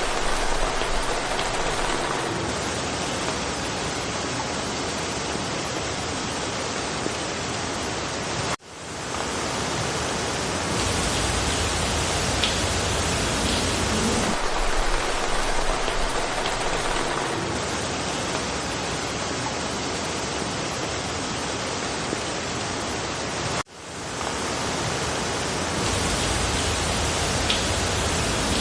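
Steady rain falling through forest foliage, an even hiss. Twice it cuts out for an instant and swells back in.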